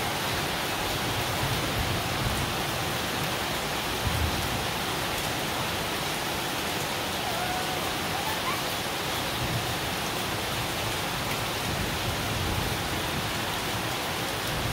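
Heavy rain falling steadily on a paved yard and standing puddles, an even unbroken hiss.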